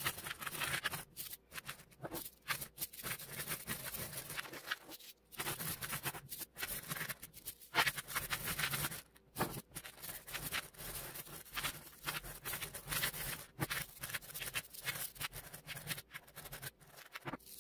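Strands of small neodymium magnet balls clicking and clattering as they snap onto a pyramid of more magnet balls: rapid, dense metallic ticking in bursts with a few short breaks.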